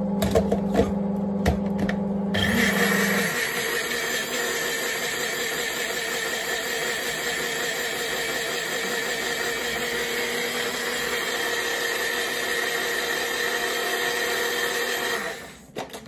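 Compact personal blender's motor running steadily, blending a green vinaigrette in its cup. Its tone rises about three seconds in, and it stops shortly before the end.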